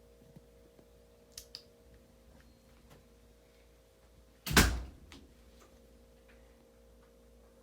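A single loud thump about four and a half seconds in, with a couple of light clicks before it, over a faint steady hum.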